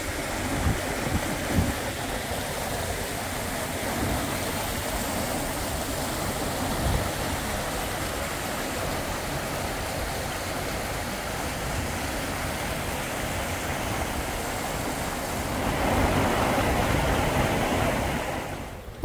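Steady rushing noise of muddy floodwater runoff flowing across a dirt track, mixed with wind buffeting the microphone. It swells a little near the end.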